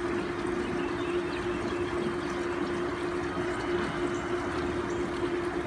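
A steady machine hum, one constant tone over an even rushing noise.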